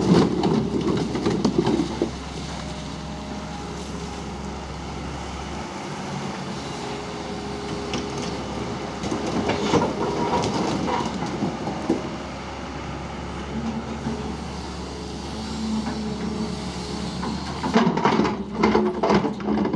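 Backhoe loader's diesel engine running steadily under load, with bursts of rattling and clanking from the digging gear near the start, around the middle and near the end.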